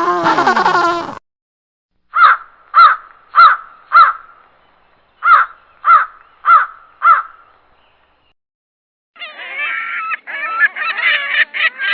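Crow cawing: two series of four short caws, a little over half a second apart, with a pause between the series. In the first second, the end of another animal's drawn-out calls; from about 9 seconds in, geese honking.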